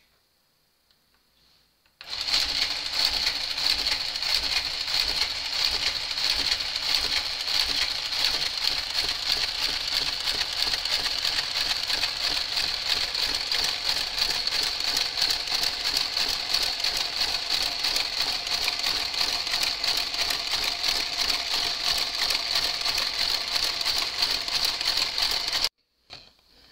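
Motorized garter carriage travelling along the needle bed of a Brother KH-930 knitting machine, knitting rows of garter stitch: a fast, steady mechanical clicking with a high whine. It starts about two seconds in and stops abruptly near the end.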